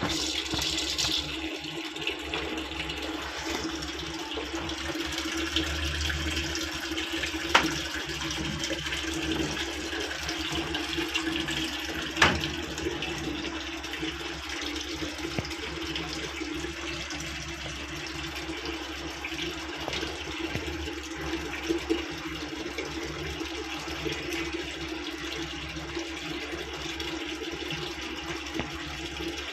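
Water running steadily into a Midea 6.5 kg washing machine, with a steady hum under it and two sharp clicks. This is the kind of filling that goes on into an overflow when a bent pressure-sensor pipe keeps the machine from sensing the water level.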